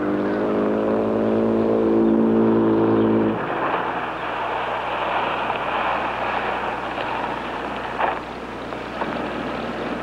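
Aston Martin DB2/4 convertible engine pulling away, its pitch climbing slowly over the first three seconds, then a steady wash of engine and road noise as the car drives off. A short sharp tap about eight seconds in.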